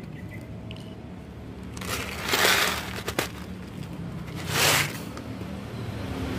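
Dry cat kibble shaken out of a plastic bottle onto a pebbled concrete floor in two pours, the first about two seconds in and lasting about a second, the second shorter, a little before the five-second mark.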